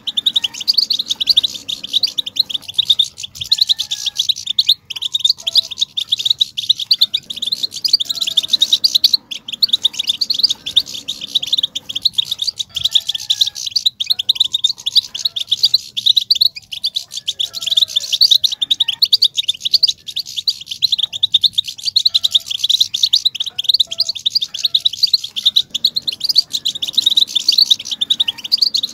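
European goldfinches twittering in a fast, unbroken chatter of high notes, the 'batbata' twitter used to stir male goldfinches into song.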